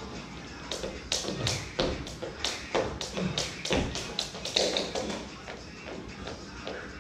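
Jump ropes slapping the gym floor and feet landing, sharp taps at an uneven pace of about three a second, with background music.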